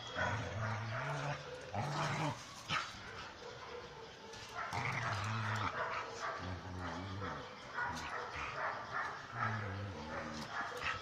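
Two dogs play-fighting, with repeated low growls, each up to about a second long, and some barks.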